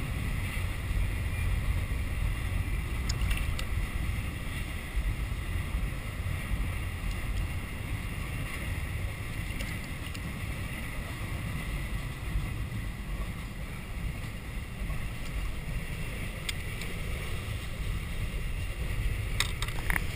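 Wind buffeting an action camera's microphone on a kayak, a steady low rumble, with a few faint clicks and knocks, a cluster of them near the end.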